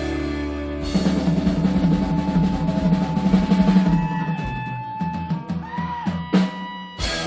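Rock band playing live: a drum kit plays a busy fill over snare and bass drum beneath sustained guitar and bass notes, with a pitch slide about six seconds in and a loud cymbal-like hit near the end.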